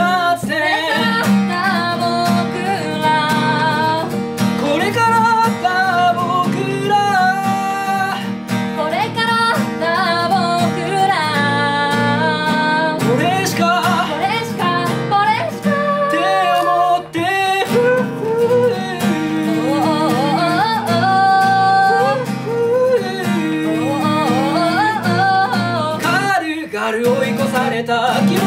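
A man singing to an acoustic guitar being played.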